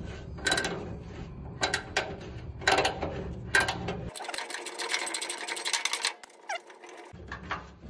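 Hand ratchet on a rusty fender bolt of a 1961 GMC truck: several separate clicking strokes, then about two seconds of fast continuous ratchet clicking from about four seconds in as the loosened bolt is spun out.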